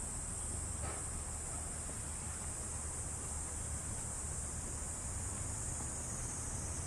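Steady high-pitched insect chorus, a continuous shrill hiss, over a low steady rumble.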